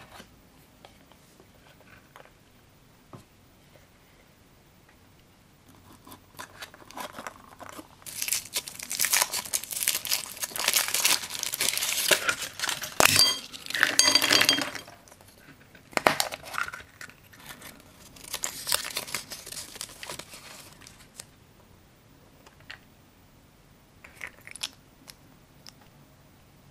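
Foil wrapper crinkling and tearing as it is peeled off a Choco Egg chocolate egg, with the thin chocolate shell cracking open. The crinkling is loudest in the middle and comes in two long stretches. Scattered light clicks of the plastic toy capsule and figure parts come before and after.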